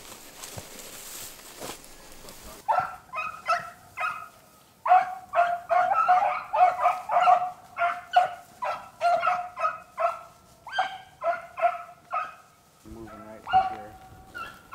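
Beagles baying as they work a rabbit's scent through cover. After a quiet start comes a fast, continuous run of short, high, ringing yelps from more than one dog, with a brief lull near the end before they pick up again.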